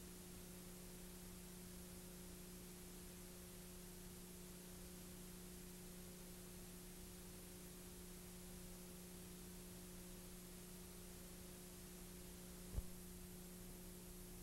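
Near silence: a faint, steady electrical hum under hiss, broken once near the end by a single short low pop.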